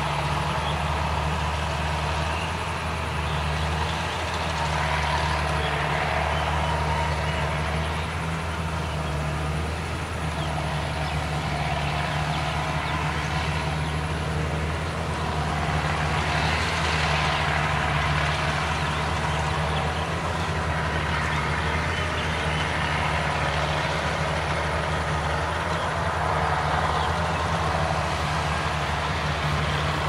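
Rice combine harvester running steadily as it cuts the paddy: an even, low engine drone with machinery noise over it that never stops or changes much.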